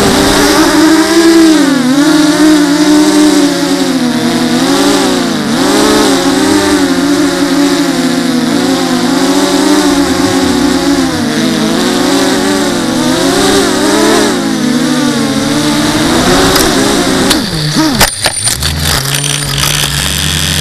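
The electric motors and propellers of an FPV racing quadcopter, heard from on board: a steady whine in several tones that rises and falls with throttle, one propeller tip missing about a centimetre. About 17 s in the whine drops away, several sharp knocks follow as the quad comes down, and then a low steady buzz.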